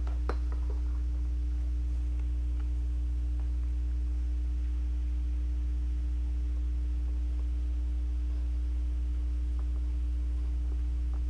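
Steady low hum with a fainter higher tone above it, unchanging throughout; a light click about a third of a second in.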